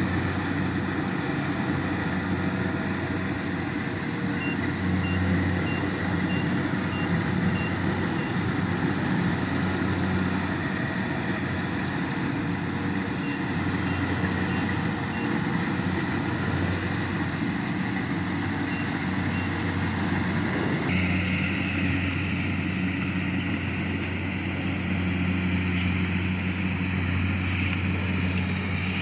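Heavy harvesting machinery, a diesel-engined machine such as a combine harvester, running steadily under load. Faint, rapid high beeping comes in a few short runs. The sound shifts abruptly about two-thirds of the way through.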